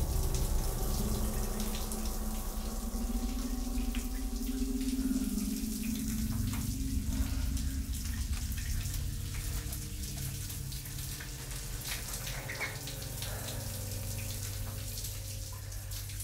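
Shower water running steadily and spattering in a tiled shower stall, over a low steady hum.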